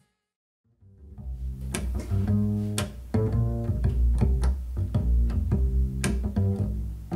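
Music played through a desktop speaker and picked up by a microphone. After about a second of silence, a track starts with plucked double bass lines and sharp percussive hits.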